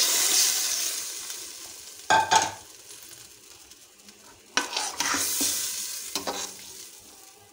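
Water poured into a hot steel pot of masala-fried chickpeas, hissing and sizzling loudly, with the sizzle dying away over the first two seconds. Then a metal slotted spoon stirs the liquid, scraping against the pot in short bursts about two, four and a half and six seconds in.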